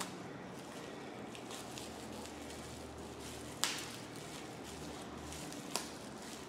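Quiet handling of small items during an unboxing, with two short sharp clicks, one a little past the middle and one near the end, over a faint low hum.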